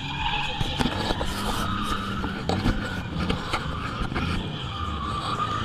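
Drift cars' engines running, with tyre squeal from cars drifting.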